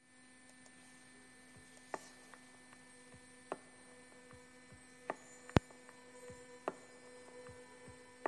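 A faint steady hum with sharp ticks about every second and a half; one tick, a little past halfway, is much louder than the rest.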